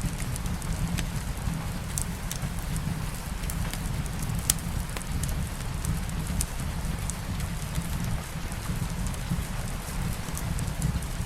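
Steady rain hiss mixed with a wood fire in a fireplace: a low steady rumble under it and scattered sharp crackles and pops, the loudest pop about halfway through.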